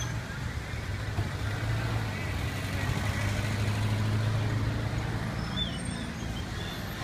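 A motor vehicle's engine running nearby with a steady low hum that swells toward the middle and then eases off, over general street noise.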